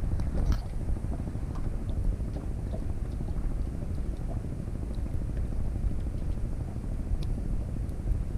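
Steady low rumble aboard a small outrigger fishing boat, with a few faint clicks scattered through it.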